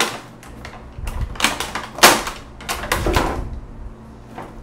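Stiff plastic packaging crackling and rustling in a series of short bursts as a doll is pulled out of it, loudest about two seconds in, then dying down.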